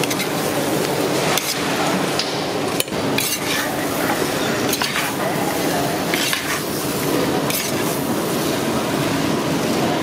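Long metal spatula scraping and knocking against a large iron kadai as batter-fried fish pieces are tossed in masala, a sharp scrape or clink every second or so over a steady hiss.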